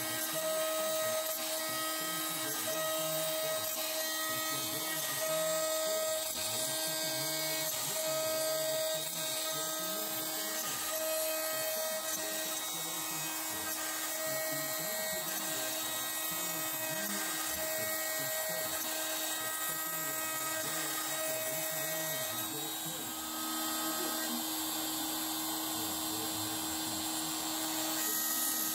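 Shapeoko CNC router spindle running at high speed while a small end mill cuts a dark hardwood guitar bridge blank: a steady high whine with cutting noise. Under it, a hum swells and fades every second or two as the tool moves along its passes, and it changes slightly about three-quarters of the way through.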